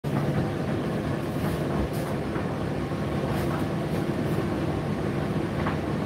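Indesit IDC8T3 condenser tumble dryer running: a steady rumble of the turning drum and hum of the fan, with a few faint clicks.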